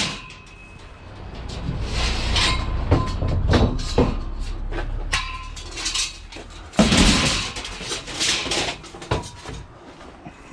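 Scrap metal being handled and loaded: a string of irregular clanks and knocks, some louder crashes among them, over a low rumble.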